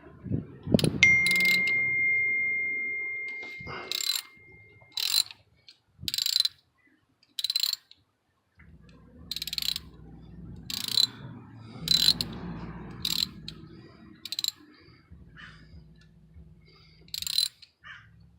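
Ratchet wrench with a long extension and spark plug socket clicking in short strokes, working a spark plug loose from deep in its well. A metallic clink about a second in rings on for a few seconds.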